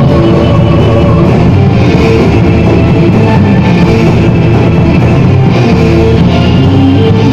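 Live gothic metal band playing loudly: distorted electric guitars, bass and drum kit.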